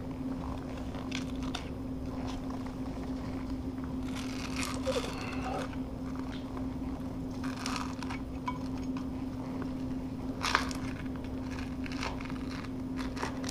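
Scraper blade scraping and prying at a stuck piece of old vinyl plank against the subfloor: irregular scrapes and crackles, a cluster about four seconds in and a sharp scrape near ten seconds. A steady low hum sits underneath.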